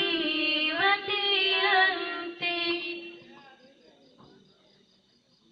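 Girls' voices sing the final drawn-out word of an Arabic love song, bending through a long ornamented run over a steady lower note. The singing fades out about three and a half seconds in.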